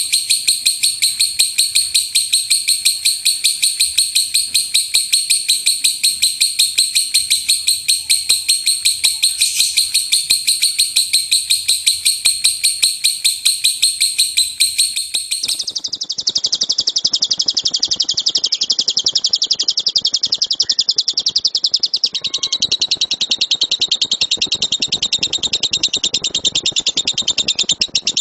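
Lovebird singing a long unbroken run of rapid shrill chattering notes, about five a second: the loud 'tembakan' song used to train other birds. About halfway through, it switches abruptly to a slightly lower, narrower chatter, as from a different recording.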